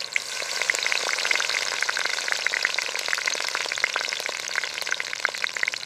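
Marinated boneless chicken pieces deep-frying in hot oil: a steady sizzle with dense crackling and popping.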